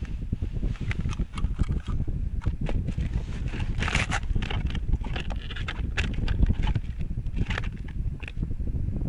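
Wind rumbling on the microphone, with scattered light crunches and scrapes on crusty ice as a small ice-fishing rod is handled and laid down beside the hole; the loudest scrape comes about four seconds in.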